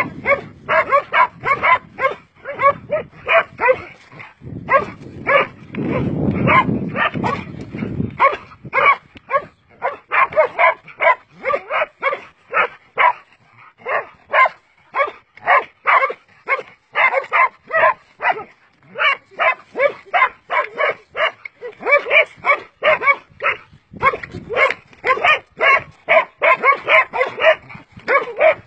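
Dog barking rapidly and repeatedly, about three barks a second, with a few short pauses, while attacking a cobra.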